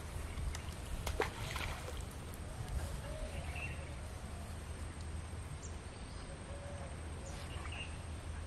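Outdoor pond-side ambience: a steady low rumble with a few faint short calls, and a couple of sharp clicks about a second in.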